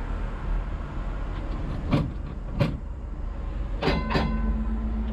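A 1934 ex-Sydney heritage tram standing at a stop, with a steady low rumble. Sharp knocks come about two seconds in, and a pair of ringing clicks near four seconds, as a steady hum sets in.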